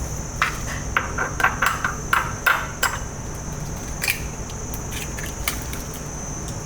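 A quick run of sharp knocks and clacks from kitchen utensils striking hard surfaces, bunched in the first three seconds with a few more later, over a steady high whine and a low hum.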